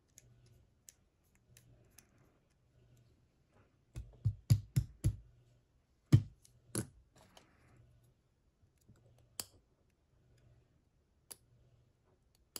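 Small metal clicks and taps of tools working a picked ASSA D12 lock cylinder as it is taken apart to remove the plug: a quick cluster of sharp clicks about four seconds in, two more around six seconds, then a few scattered single clicks.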